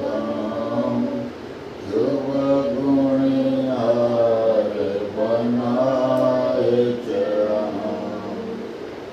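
Voices chanting a devotional prayer together in long, held, sung phrases, with a short pause about a second and a half in; the chant ends near the end.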